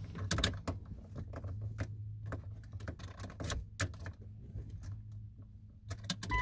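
Scattered small clicks and light rattles of a key and key ring being worked into the steering-column ignition of a 1999 Jeep Cherokee XJ, over a faint low hum.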